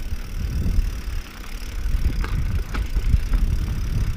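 Mountain bike rolling over rocky trail: a steady low rumble from the tyres with rattling from the bike and a few sharp knocks as the wheels strike rocks.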